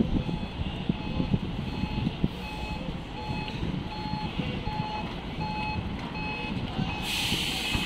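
Large diesel cargo truck reversing, its backup alarm beeping steadily about twice a second over the low running of the engine. A short hiss comes near the end.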